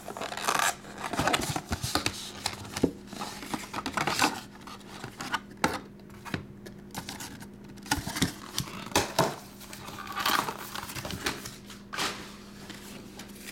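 A cardboard trading-card box opened by hand and the graded cards inside handled: irregular scraping and rubbing of cardboard, with light clicks and clacks from the hard plastic slab cases.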